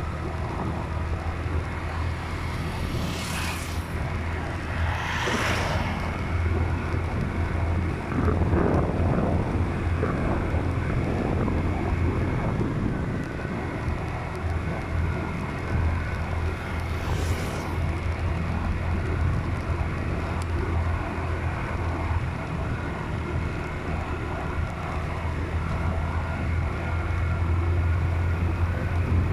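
Steady low drone of a moving vehicle's engine and road noise, with wind on the microphone. Three brief whooshes, about three and five seconds in and again a little past halfway, are other vehicles passing.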